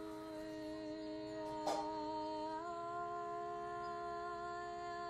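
A woman singing a long held vowel over the steady drone of a shruti box; her voice steps up to a higher note about two and a half seconds in. A single sharp click comes a little after a second and a half in.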